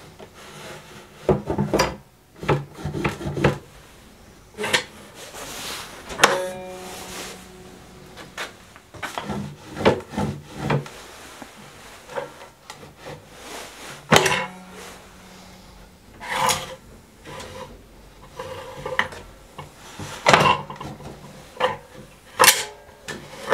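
Wooden desk drawers being pushed in and pulled out by hand: wood sliding on wood, with irregular knocks and clicks as the hidden drawer's spring-loaded latch mechanism engages and releases.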